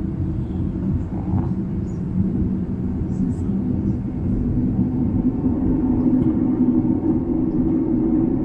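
Boeing 787-10's GE GEnx engines running at low power as the jet taxis, heard inside the cabin: a steady low rumble with a hum that grows a little louder about halfway through.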